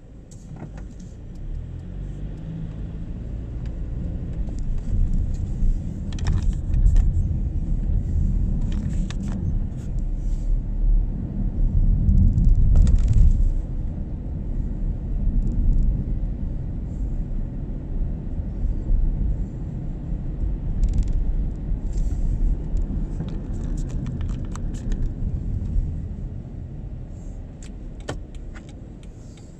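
Car engine and road rumble heard from inside the cabin as the car pulls away and drives through city streets. It builds over the first few seconds, is loudest about halfway through, and eases off near the end as the car slows. Scattered light clicks and rattles come through over it.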